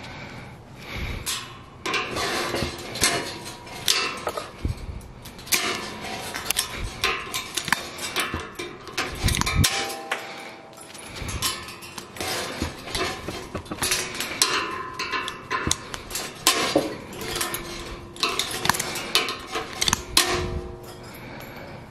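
Steel tie wire being wrapped and twisted around rebar crossings with ironworker's pliers to make figure-eight ties: irregular metallic clicks, clinks and scrapes of wire and plier jaws against the bars, starting about a second in.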